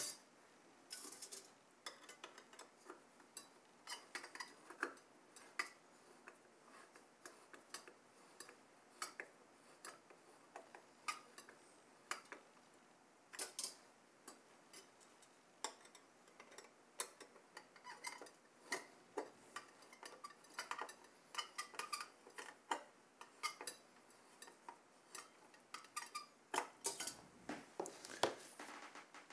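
Long screwdriver tightening the mounting screws of a Noctua NH-C14S CPU cooler through the holes in its fin stack: faint, irregular metallic clicks and ticks as the tip works in the screw heads.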